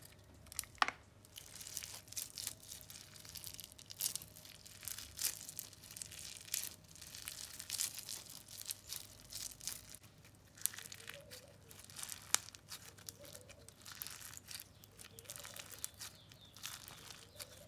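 Crunchy scrub slime full of small beads and crystals being stretched and torn apart by hand: irregular crackling and popping with quick tearing sounds. The slime is a little stiff from too much activator.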